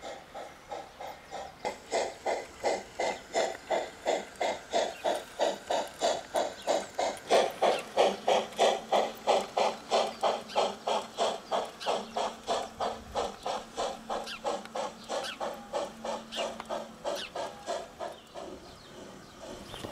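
Steam locomotive chuffing in an even rhythm of about three beats a second. It grows louder from about two seconds in, is loudest around the middle, then fades as the locomotive passes.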